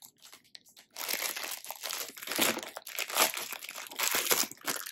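Packaging crinkling and rustling as a fidget toy is unwrapped, starting about a second in.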